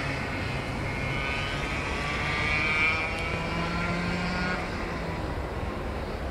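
Rotax 125 cc two-stroke kart engine buzzing at high revs as a kart laps the circuit, its pitch climbing a little before it fades about four and a half seconds in.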